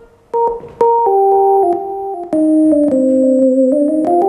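Casio XW-G1 synthesizer playing a keyboard-like preset: a few short repeated notes, then held two-note chords stepping down in pitch, rising again near the end.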